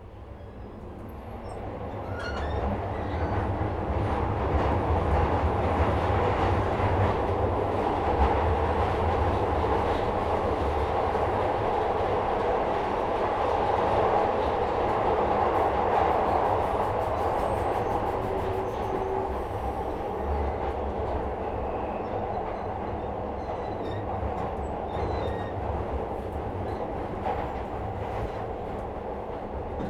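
Metro-Cammell-built 2nd-generation Glasgow Subway train heard from inside the car, pulling away and running through the tunnel. The running noise builds over the first few seconds to a steady loud rumble of wheels on rail, easing off a little in the second half.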